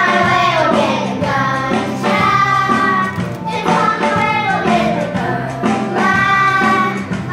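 A group of children singing a Chinese cartoon theme song in Chinese over instrumental backing music, holding long, wavering notes.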